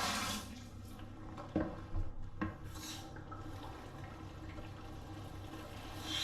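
Shower water spraying, shut off about half a second in, then three quick knocks about two seconds in and a brief hiss of water.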